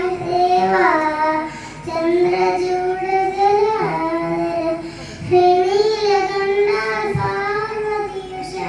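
A child singing long, wavering held notes, phrase after phrase, with brief breaths between them; the voice sounds this way because of a cough, as the title has it.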